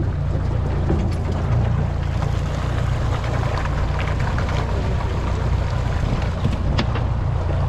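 Boat's outboard motor running steadily under way, with wind noise on the microphone and a few light knocks.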